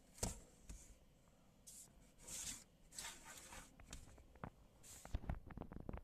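Faint handling noise of a pair of plastic-framed sunglasses being turned and set down on a tabletop by hand: soft rubbing swishes and scattered small clicks and taps, the taps coming thicker near the end.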